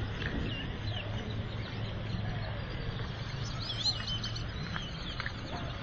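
Small birds chirping in short high sweeps that come more often in the second half, over a steady low hum of road traffic.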